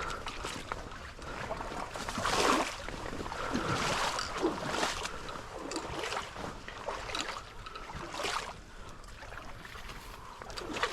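Pond water sloshing and swishing in irregular strokes about a second apart, as a person moves through it.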